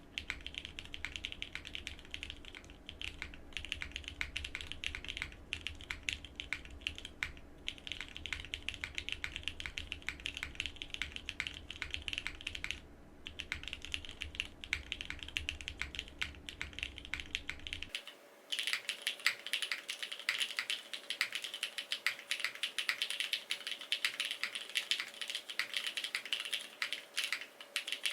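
Fast, continuous typing on a Frog Mini mechanical keyboard with BCP switches and GMK Katakana keycaps, a dense run of keystroke clacks with a brief lull midway. About two-thirds of the way in, the sound turns thinner and brighter and loses its low thud.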